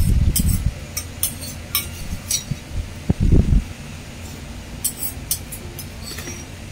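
Metal spoon clinking and scraping against a porcelain soup bowl in scattered light taps. Two short low thuds, one near the start and one about three seconds in, are the loudest sounds.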